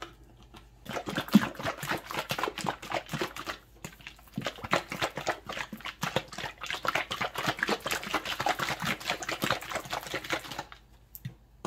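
Plastic bottle of freshly combined acrylic pouring medium (Floetrol and Australian Floetrol mix) shaken hard by hand to blend it. The liquid sloshes and knocks inside in rapid, irregular strokes for about ten seconds, then stops.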